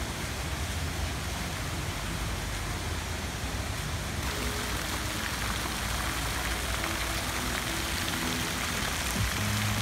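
Steady splashing of fountain jets falling into a pool. Faint background music comes in about halfway and grows stronger near the end.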